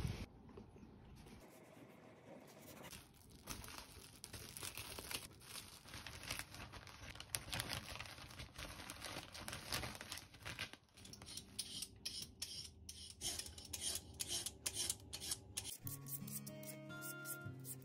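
Kitchen prep sounds in turn: a knife sawing through a soft loaf of white sandwich bread, a plastic zip-top bag crinkling as the slices go in, and quick scraping strokes of a peeler shredding a carrot. Soft music comes in near the end.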